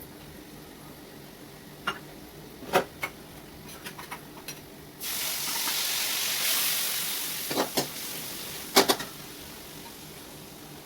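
Vegetables sizzling in hot oil in a pan as cluster beans are tempered: a loud sizzle starts suddenly about five seconds in and dies down about three seconds later. Sharp clinks of a spoon against the pan come before and after it.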